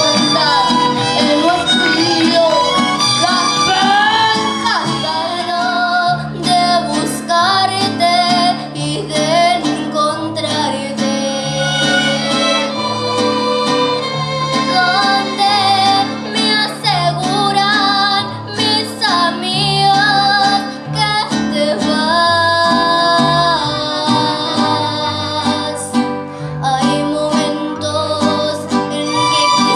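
Live mariachi band playing: violins and trumpets carrying the melody over strummed guitars and a stepping bass line.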